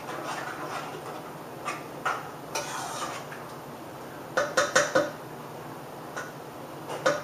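A utensil stirring a thick meat, gravy and vegetable mixture in a saucepan, with a few clinks against the pot and a quick run of knocks about four to five seconds in, the loudest part.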